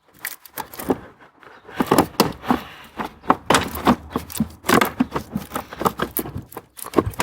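Rapid, irregular clicks, knocks and scrapes of a car's plastic blower motor assembly being worked loose and pulled out of its housing, mostly from about two seconds in.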